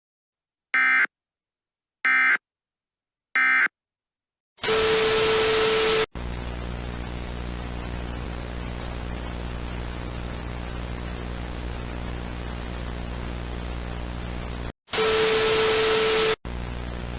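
Emergency Alert System end-of-message signal: three short digital data bursts about a second apart. Then loud static hiss with a steady tone over it starts for about a second and a half and drops to a quieter buzzing static with a low hum. The loud hiss-and-tone comes back briefly near the end.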